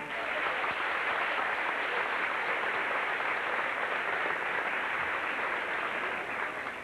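Audience applauding steadily, then stopping abruptly near the end.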